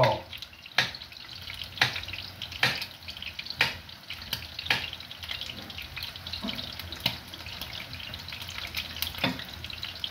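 Knife striking a chopping board about once a second while vegetables are cut for kachumbari, the strikes thinning out in the second half, over a steady hiss underneath.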